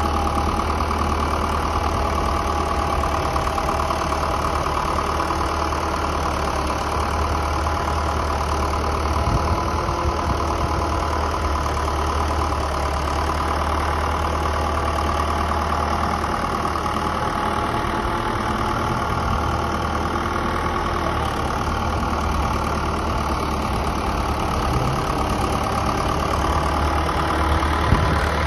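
Versatile 256 tractor's remanufactured Cummins diesel engine running steadily at a constant speed while the tractor drives slowly across the field.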